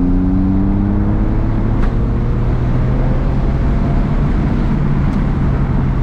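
Porsche 996 Turbo's twin-turbo flat-six accelerating hard under boost, its pitch rising for the first second or so and then levelling into a steady drone. The pull reaches about 0.7 bar of boost without overboosting. Two faint clicks are heard, about two seconds in and again near the end.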